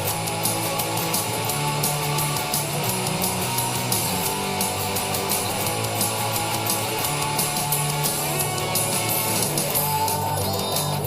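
Distorted electric guitar playing a fast punk rock song, with continuous strummed and picked chords.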